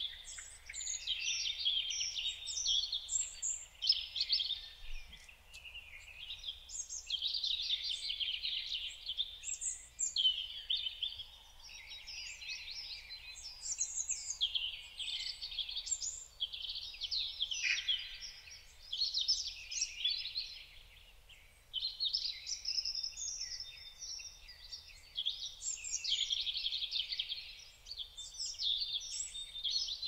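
Small songbirds singing and twittering, with many quick high chirps and trills overlapping almost without a break.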